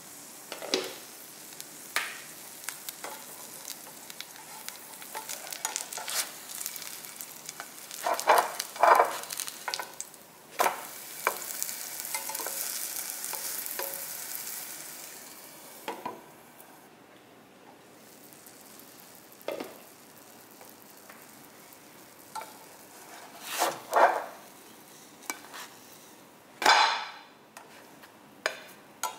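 Cheese and spring onion flatbread sizzling in a frying pan, the sizzle strongest about halfway through, with repeated knocks and scrapes of a spatula against the pan as the bread is turned and pressed.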